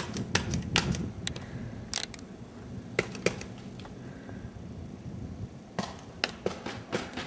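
Compressed-air paintball markers firing in short, irregular volleys of sharp pops: a few shots at the start, single shots around two and three seconds in, a pause, then a quick run of shots near the end.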